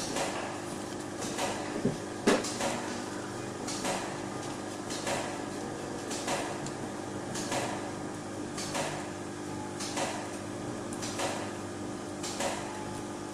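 Cardboard coaster discs being handled and pressed by hand on a cutting mat: soft knocks and rustles about once a second, the loudest a little over two seconds in, over a steady low hum.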